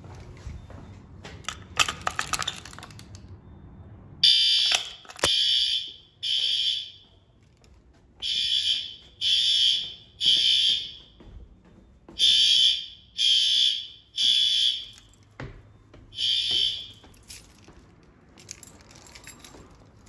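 Fire alarm horns sounding in the temporal-3 evacuation pattern: groups of three loud, high blasts about a second apart, with a longer pause between groups. They stop after the first blast of a fourth group. Before the horns start, keys on a key ring jangle briefly.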